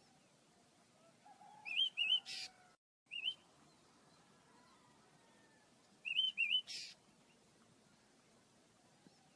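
Small caged birds chirping: a quick pair of chirps followed by a short harsh buzzy note, about two seconds in and again about six seconds in, with a single chirp between.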